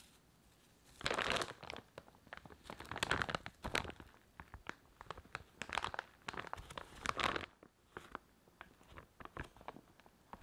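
Plastic bag of shredded cheese crinkling as it is handled, in irregular bursts, loudest about a second in, with quieter scattered crackles near the end.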